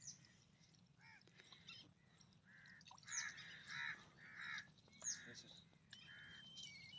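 A crow cawing faintly in a run of about six harsh caws, evenly spaced, starting about two and a half seconds in. A few thin, high bird chirps come near the end.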